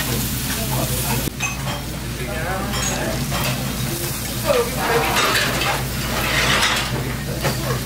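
Metal spoon and chopsticks stirring and scraping through spicy mixed rice and noodles in stainless steel bowls, with light clinks against the metal, over a steady sizzle of meat on the table grill and faint diners' voices. The background changes abruptly about a second in.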